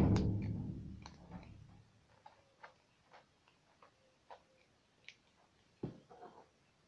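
A loud knock with a low ringing that dies away over about two seconds, then a cat eating from a plastic bowl: sharp little clicks of crunching about every half second, with another knock near the end.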